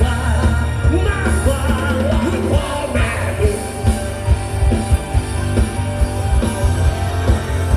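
Live band music with singing, over a heavy bass and a steady drum beat.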